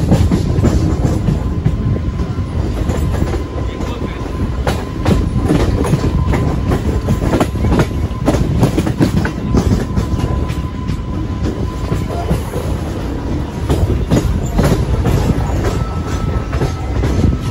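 Electric suburban local train (EMU) running, heard from its open doorway: a steady rumble with the wheels clattering irregularly over rail joints and points. A faint steady whine runs through most of it.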